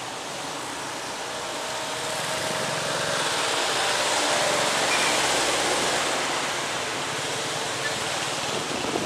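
A vehicle passing by: a rushing noise that swells to a peak about five seconds in and then fades, with a faint engine hum under it.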